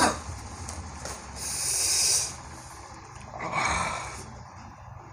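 A man's breathing as he reacts to the bitterness of bitter-gourd juice. After a sharp click at the very start, there is a hissing breath about one and a half seconds in, then a snort into a tissue near the four-second mark.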